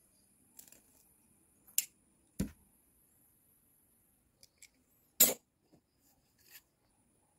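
A few sharp clicks and knocks from a pocket lighter and a wax candle being handled and set against a wooden strip, the loudest knock about five seconds in.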